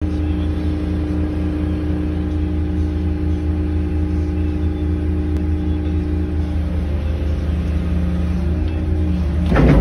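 Excavator engine running steadily, heard from inside the cab as a constant hum with a few fixed tones, which shift slightly past the middle. A brief louder burst of sound comes near the end.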